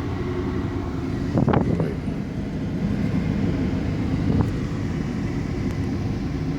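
Vehicle engine running steadily with a low rumble. A brief clatter comes about a second and a half in, and a smaller knock follows a few seconds later.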